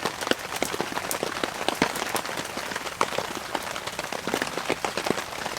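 Heavy rain falling on a tent, a dense, irregular spatter of drops hitting the fabric.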